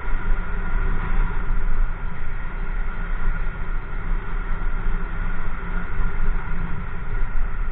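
Motorcycle engine running steadily while riding at low speed, with a deep rumble underneath.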